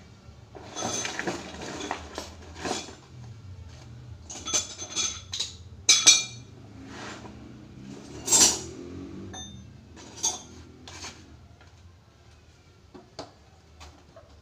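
Metal hand tools, wrenches and sockets, clinking and clanking against each other and the floor as they are handled, in irregular knocks. The two loudest clanks come about six and eight and a half seconds in.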